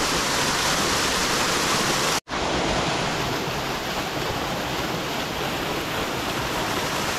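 Steady rushing of creek water pouring over a small waterfall into a pool, with a momentary break in the sound about two seconds in.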